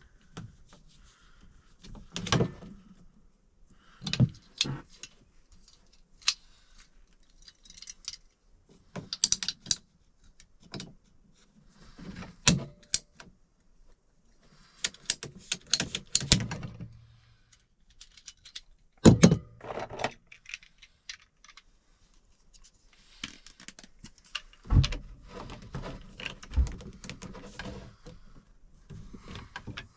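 Intermittent clacks, taps and rattles of PVC condensate drain pipe and fittings being handled and fitted together. A sharper knock comes about 19 seconds in, and a few low thumps come around 25 seconds.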